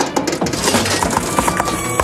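Cartoon soundtrack: background music under a rapid run of clattering, clinking sound effects.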